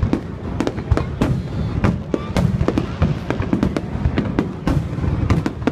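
Aerial firework shells bursting in a high-altitude display: a dense, irregular run of sharp bangs and deep booms, several a second, without let-up.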